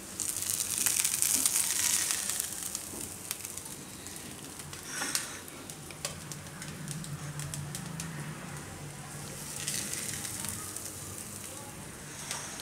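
Idli batter sizzling and crackling in butter and oil in a kadai, loudest for the first couple of seconds, with brief louder flare-ups about five and ten seconds in.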